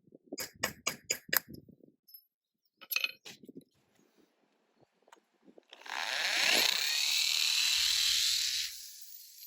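A quick run of hammer taps on a flat-tip punch against concrete block, a couple more a second or so later; then, a little past halfway, a hammer drill spins up and bores into the block with a 1/8-inch masonry bit for about three seconds before trailing off.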